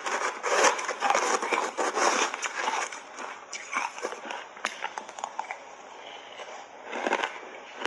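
Close-miked crunching of powder-coated shaved ice being chewed in big bites: a dense crackle for the first three seconds that eases into scattered crunches, then a fresh mouthful crunches loudly about seven seconds in.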